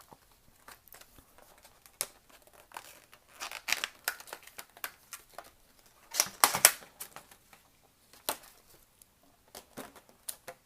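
Packaging crinkling and tearing as a pair of crimping pliers is unpacked, with scattered clicks of handling. The loudest burst of rustling comes just past the middle.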